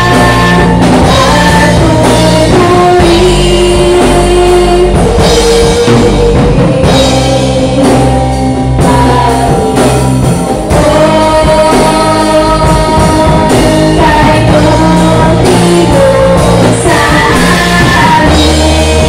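Two women singing a worship song through microphones over a live band of electric guitars and drum kit.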